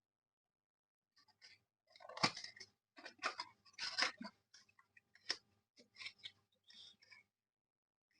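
Perfume packaging being handled and opened by hand: an uneven string of rustles, scrapes and clicks that starts about a second in and stops shortly before the end.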